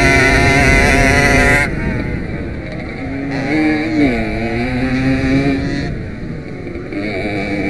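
Small 50 cc two-stroke Jawa motorcycle engine at racing revs, held high, then backed off about two seconds in. It picks up again through a bend, backs off once more around six seconds, and opens up again near the end.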